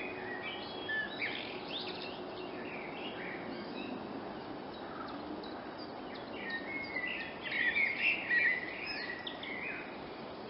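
Eurasian blackbird singing: two phrases of warbling song, the second louder, starting about two-thirds of the way through, over a steady background noise.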